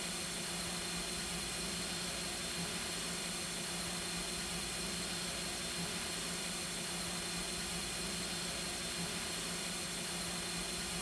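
Steady hiss with a low hum and a faint high whine: machine-shop room tone, unchanging throughout.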